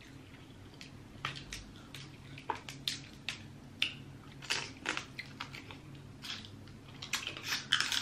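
Seafood shells being cracked and broken apart while eating: a dozen or so irregular sharp cracks and crunches spread over several seconds, with short crackly bursts near the middle and near the end.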